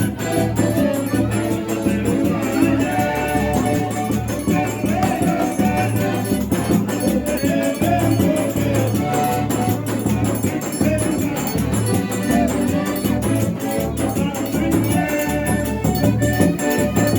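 Forró music playing: a voice singing over a fast, steady shaker-like rhythm and a pulsing low beat.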